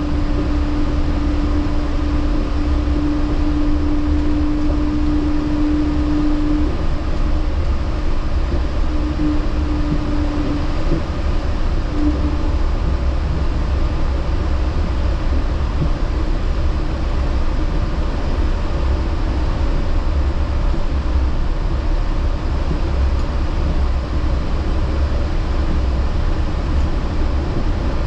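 Yurikamome rubber-tyred automated guideway train running between stations, heard from inside the front car: a steady low rumble. A steady hum over it fades out about seven seconds in.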